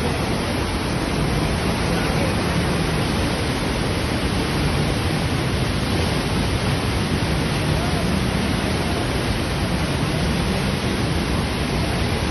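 Floodwater pouring through the open spillway gates of a dam and churning in the river below: a loud, steady rush of falling water. The dam has all its gates open after heavy rain and is releasing a large volume of water.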